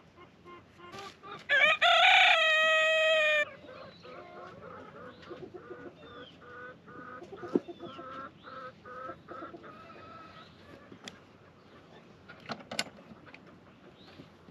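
A rooster crows once, loud, starting about a second and a half in and lasting nearly two seconds. Softer chicken clucks and calls follow, with a few sharp clicks later on.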